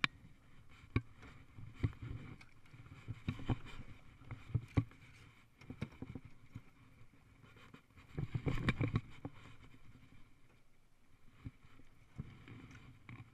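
Irregular knocks, taps and thumps of someone moving about and handling gear in a small jon boat, with a louder run of bumps about eight seconds in.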